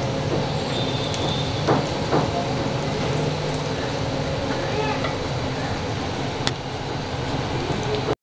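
Samosas shallow-frying in hot oil in a non-stick pan, the oil sizzling steadily over a low hum. A spatula knocks against the pan a couple of times about two seconds in and once more later as the samosas are turned.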